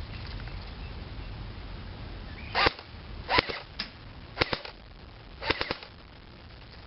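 Airsoft AK47 electric gun firing on full auto in short bursts. About five brief bursts of a few rapid shots each come a couple of seconds in, spread over about three seconds.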